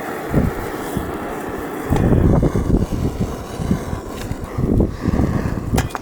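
Wind buffeting the microphone in loud, irregular gusts that get stronger about two seconds in, with a couple of sharp clicks near the end.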